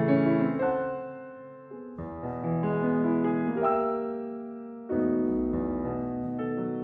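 Solo piano playing slow classical music: chords struck and left to ring and fade, with a new chord about two seconds in and another about five seconds in.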